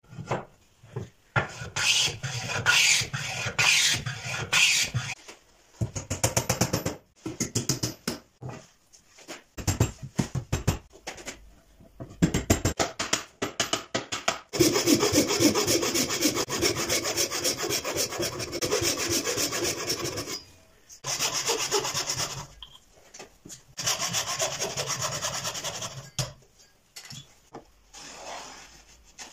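Hand tools working wood: runs of quick, rasping strokes on wood with short gaps and a few knocks between them. The longest, steadiest run of strokes comes about halfway through and lasts some six seconds.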